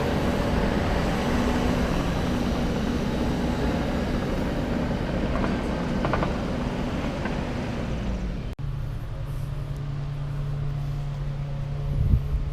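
A vehicle engine running under heavy, steady mechanical and road-like noise. It cuts off abruptly about two-thirds of the way through, and a steadier, lower-pitched engine hum follows.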